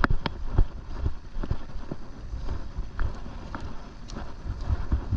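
Footsteps crunching on a gritty concrete path, an uneven run of short knocks and clicks, with handling knocks from the handheld camera pole and wind rumbling on the microphone.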